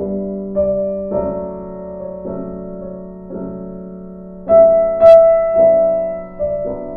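Background piano music: sustained notes changing about once a second, swelling louder about four and a half seconds in.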